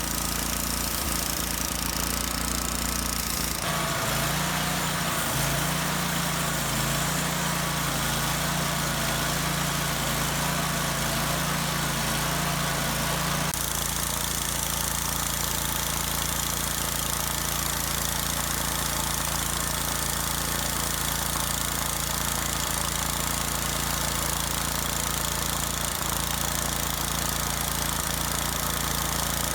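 Engine running steadily; its sound changes abruptly about 4 seconds in and again about 14 seconds in, with a faint whine over it in the first few seconds.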